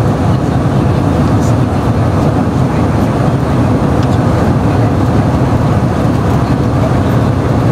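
Steady airliner cabin noise in flight: the even rush of engines and airflow, unchanging in level.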